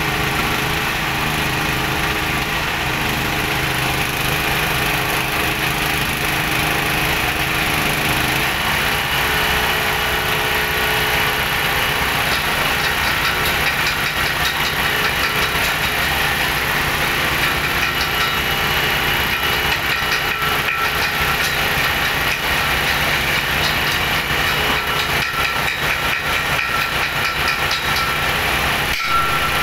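Small stationary engine running steadily as it drives a drilling rig. About eight seconds in, the pitch of its tone changes.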